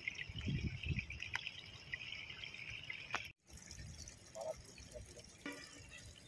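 River water running, with low thumps of handling on the microphone in the first second and a few faint clicks. The sound drops out abruptly a little over three seconds in, then the water resumes more quietly with a couple of brief faint voice fragments.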